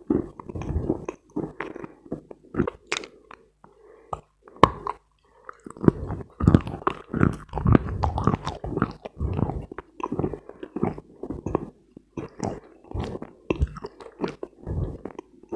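Biting and chewing dense dry Khrapovsky chalk, a quick run of short dry crunches. The chewing pauses for about two seconds near the four-second mark, broken by one sharp click, then carries on.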